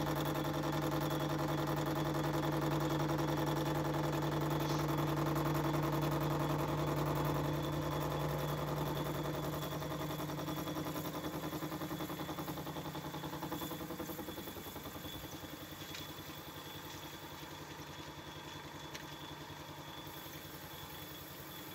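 Myford metal lathe running with a steady mechanical hum while a parting tool is fed into a spinning bar held in the chuck. The hum fades gradually from about eight seconds in and settles lower.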